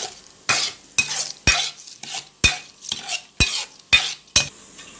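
A spoon stirring beetroot kichadi in a bowl, knocking against the side about twice a second until near the end.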